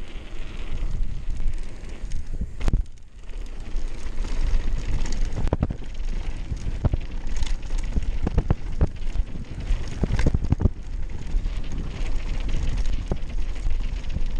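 Downhill mountain bike riding fast down a dirt and gravel trail: wind buffeting the microphone over a constant rumble of tyres on dirt and loose stones, with frequent sharp clicks and clatters as the bike rattles over bumps. The clatters are thickest in the middle, and there is a brief lull about three seconds in.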